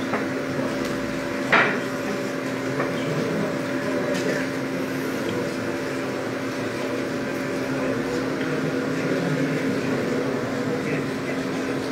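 Steady hum of running woodworking machinery, with two tones held throughout. A single sharp knock sounds about a second and a half in.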